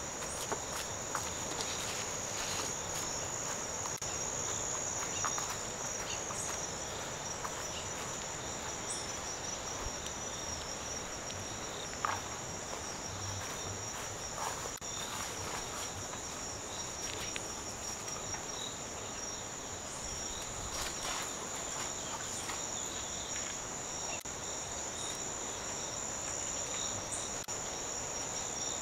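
Steady, high-pitched chorus of insects buzzing on without a break, with occasional faint footsteps and small clicks.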